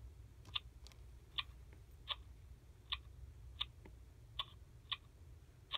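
Baby Alive doll sucking on its pacifier: about eight short, soft sucking clicks, evenly spaced at roughly one every 0.7 seconds.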